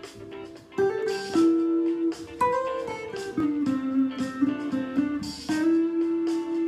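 Telecaster-style electric guitar with a clean tone, playing an improvised lead line of mostly single picked notes. Some notes are held for a second or more, and one slides up in pitch partway through.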